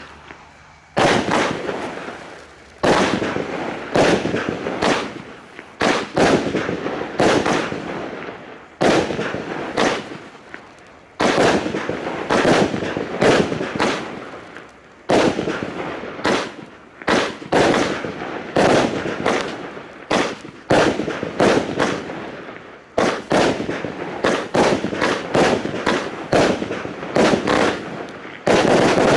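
A 25-shot, 25 mm fireworks battery (the Argento Sceptrum cake) firing its shots one after another, about one a second. Each shot is a sharp bang that trails off over a second or so.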